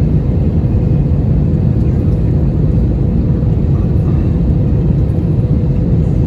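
Steady in-flight cabin noise of an Airbus A321 on descent: a loud, even rumble of engines and rushing air, with a faint steady hum above it.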